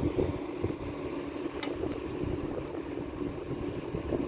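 Wind buffeting the microphone: a gusting low rumble, with one light click about one and a half seconds in.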